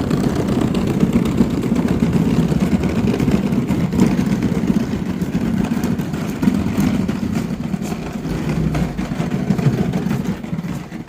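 A motor vehicle's engine running steadily with rough road noise, growing quieter just before the end.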